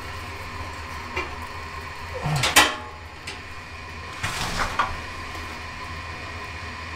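Metal clinks and scrapes of a stainless rib rack and grill grate as a slab of ribs is pushed upright into the rack: two short clusters about two seconds apart, the first with one sharp click, over a steady low hum.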